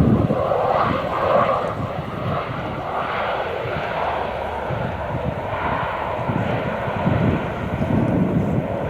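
Airbus A320 airliner's jet engines heard from outside during its landing, a loud, steady rushing noise that eases a little over the stretch.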